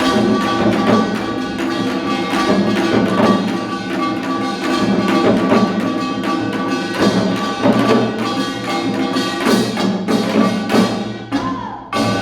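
Live ensemble music: several held, pitched instrument tones over percussion that keeps a quick beat, dipping briefly in loudness near the end.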